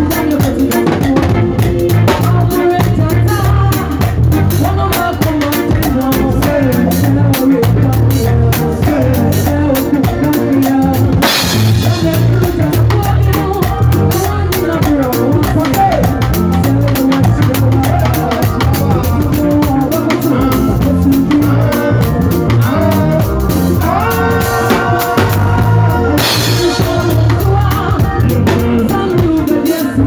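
A live band playing a raw, unmixed jam, led by a drum kit played busily with crash cymbals, over bass and keyboard. Loud cymbal crashes stand out about eleven seconds in and again near the end.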